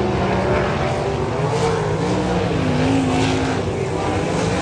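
Several winged sprint cars' V8 engines racing on a dirt oval, their pitches gliding up and down as the cars pass and pull away around the track.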